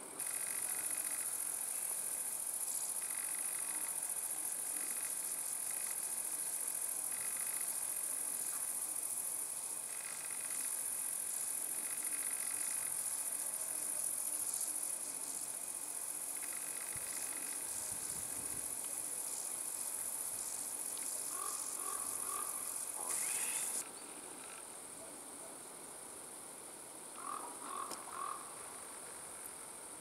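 Grasshoppers and crickets chirring: a steady high-pitched buzz, with a lower pulsing chirp that comes and goes. Twice in the later part a short run of quick repeated notes is heard, and a few seconds before the end the high buzz falls away and the sound gets quieter.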